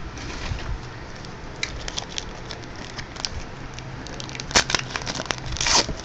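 Trading card pack wrappers crinkling and rustling as packs are opened and handled, with louder crinkles from about four and a half seconds in.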